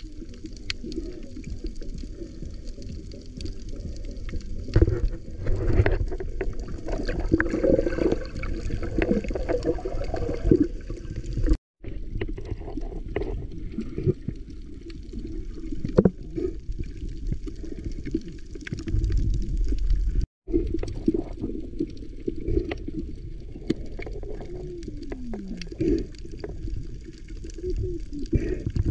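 Muffled underwater sound from a submerged camera: a low rush and slosh of water with bubbling and small clicks. It drops out briefly twice.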